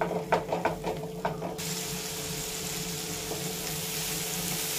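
Silicone spatula stirring and scraping a spice masala in a nonstick pan: several quick strokes in the first second and a half, then a steady sizzle of the masala cooking in oil with a little water, over a faint steady hum.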